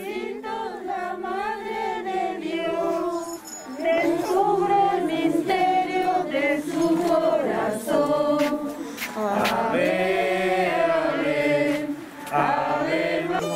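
A group of voices singing a Marian hymn in long held notes that glide from pitch to pitch.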